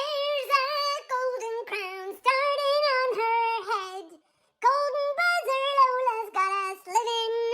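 A high voice singing a melody unaccompanied, in short held phrases, with a brief pause about four seconds in.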